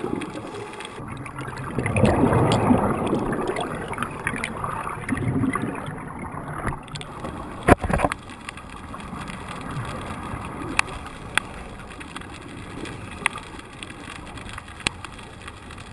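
Underwater sound through a camera housing: scuba divers' exhaled regulator bubbles and water rushing past in a strong current, busier in the first few seconds. A single sharp knock about eight seconds in, then a few fainter clicks.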